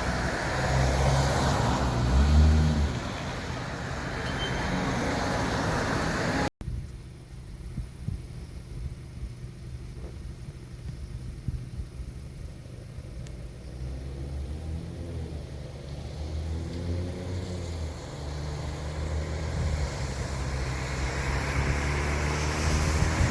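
City street traffic: cars passing with engine hum and tyre noise. About six and a half seconds in, the sound cuts off abruptly to a quieter stretch, where vehicle engines build up and pass again, their pitch rising in the second half.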